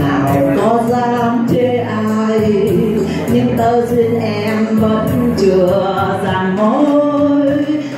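A woman singing a Vietnamese ballad into a microphone with long, held notes, accompanied by an electronic keyboard.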